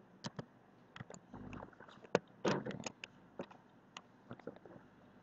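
Irregular computer mouse clicks while painting with a brush tool: a dozen or so short, sharp clicks at uneven intervals, the loudest a little over two seconds in.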